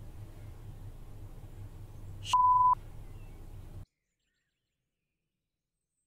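Low steady room hum, then a loud electronic beep at one steady pitch lasting under half a second, a little over two seconds in; about a second later all sound cuts off to dead silence.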